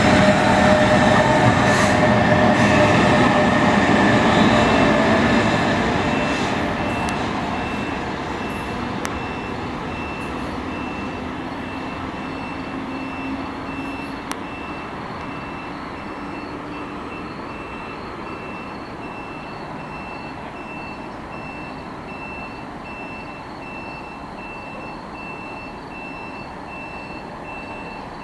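NJ Transit train with an ALP-46 electric locomotive on the rear running past and pulling away: loud for the first few seconds, then fading steadily as it recedes. A faint, evenly repeating high tone comes in about four seconds in and carries on.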